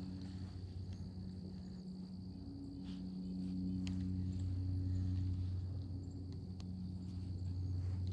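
A steady low mechanical drone that swells for a couple of seconds mid-way, under a thin high whine. A few light clicks come from a spinning reel's handle and bail being handled.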